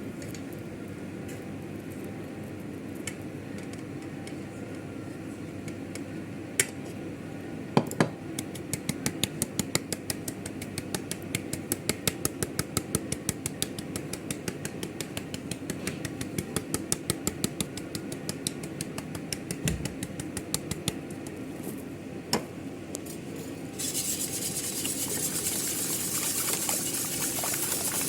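A kitchen utensil striking a bowl in a quick regular rhythm, about four strokes a second, as in beating or stirring a mixture. Near the end a steady hiss starts.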